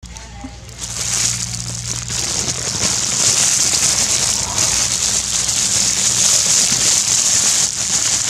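A steady crackling hiss, building over the first second and then holding, with a low hum beneath.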